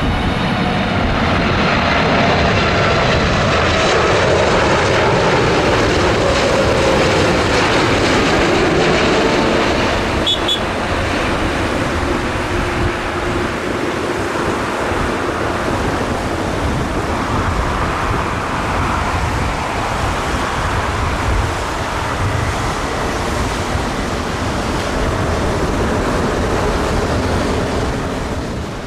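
A Boeing 747 freighter's four jet engines on approach, loud as it passes close by, with a whine falling in pitch a few seconds in. The jet noise then carries on more evenly and a little quieter as the plane lands.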